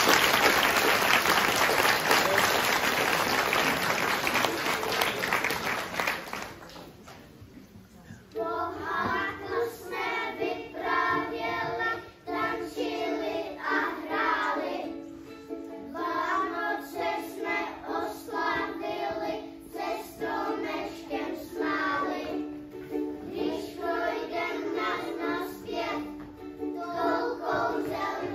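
Audience applause for about six seconds, then after a short pause a group of young children singing a song together with instrumental accompaniment, starting about eight seconds in.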